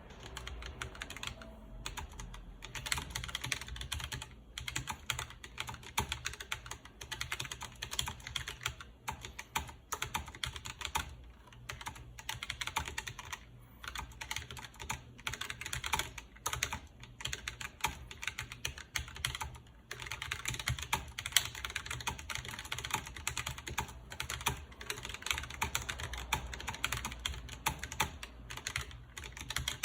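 Typing on a Keychron K1 low-profile mechanical keyboard with red linear switches: a fast, steady run of key clacks, broken by a few short pauses.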